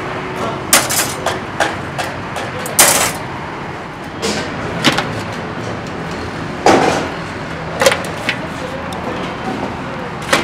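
Irregular sharp metallic knocks and clanks of a knife blade against metal skewers as grilled chicken is stripped off them, with pieces dropped into a large aluminium pot. About a dozen knocks, the loudest about three seconds in and again near seven seconds, over steady background noise.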